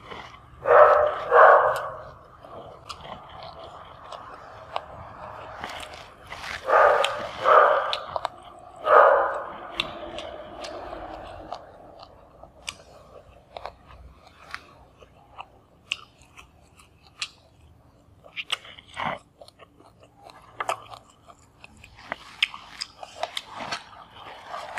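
Close-miked chewing and crunching of raw vegetables and food eaten by hand, with small clicks and wet mouth sounds. A few louder short bursts stand out, in pairs near the start and around a third of the way in, then once more.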